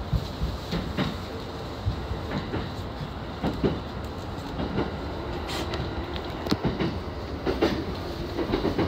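Yamanote Line electric commuter train running, its wheels clicking and knocking irregularly over rail joints and points under a steady rumble of running noise, heard from inside the train.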